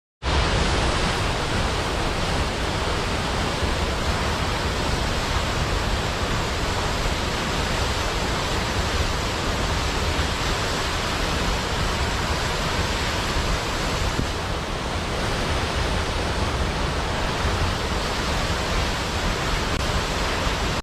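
Waterfall, water falling with a steady rushing roar.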